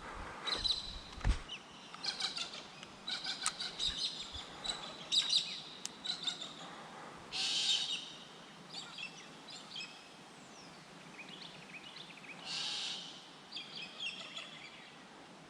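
Wild birds chirping and calling in short, repeated high notes, with two brief louder, harsher sounds about seven and twelve seconds in and a couple of low thumps in the first second or so.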